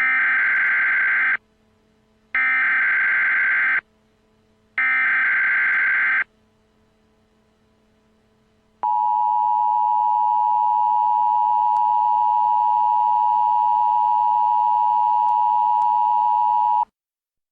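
Emergency Alert System alert tones: three bursts of SAME header data, each about a second and a half long and a second apart. A couple of seconds later comes the two-tone attention signal, a steady dual tone held for about eight seconds that cuts off suddenly.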